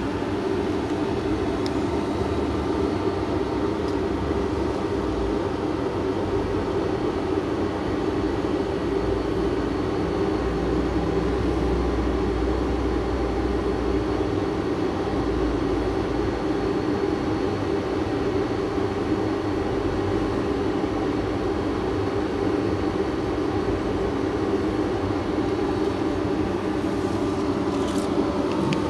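Steady, unchanging droning hum of a running machine, with a few clicks near the end.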